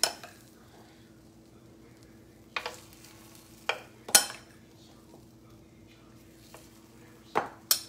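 Metal spoon scraping and clinking against a glass mixing bowl as thick batter is scooped out, a handful of sharp taps spread out, the loudest about four seconds in.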